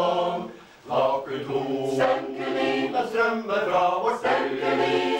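Mixed choir of women's and men's voices singing; a held chord fades out just after the start, then after a brief pause the singing resumes.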